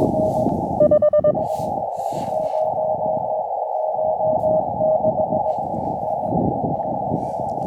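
Morse code from an amateur radio transceiver over the receiver's hiss: a faint tone keyed in dots and dashes, with a short, louder burst of keying about a second in.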